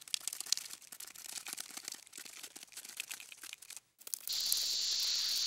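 Irregular crackling and clicking for about four seconds, a brief silence, then a steady high-pitched hiss that starts suddenly and holds.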